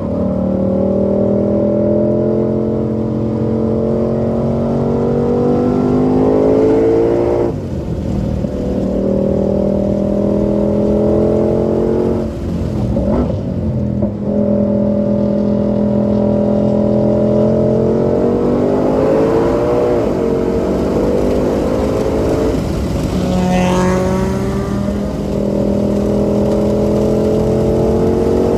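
2020 Shelby GT500's supercharged 5.2-litre V8 running hard on a race track at full throttle. Its pitch climbs slowly, drops abruptly several times at gear changes or lifts, and picks up again each time.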